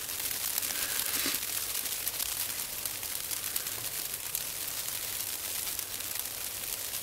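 A steady crackling hiss, dense with fine crackles, with no tune or voice in it.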